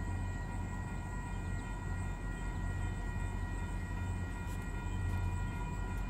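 Railway level-crossing warning bell sounding, a set of steady high tones that carry on unbroken, over a steady low hum.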